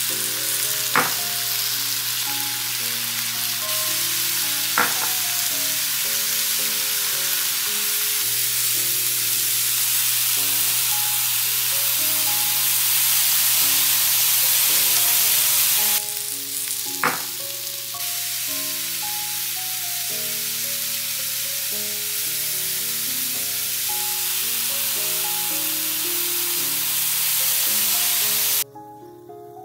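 Steak and vegetables frying on a Blackstone electric griddle: a steady, loud sizzle, with three sharp clicks, near the start, about five seconds in and about seventeen seconds in. Background music plays underneath, and the sizzle cuts off shortly before the end.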